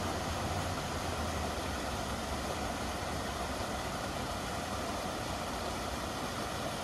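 Steady rush of water spilling over a small cascade in a stream: an even wash of noise with a low rumble underneath.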